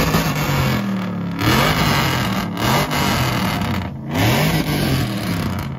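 Pickup truck engine revved several times in a row through a loud exhaust, pitch climbing and falling with each rev. The sound cuts off sharply near the end.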